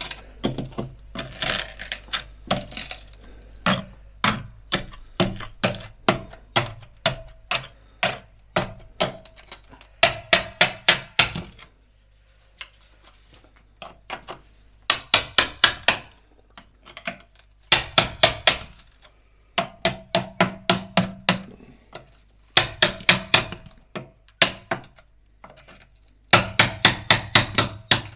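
Hammer blows in quick runs of several strikes, about six a second, with short pauses between the runs and a longer pause about twelve seconds in.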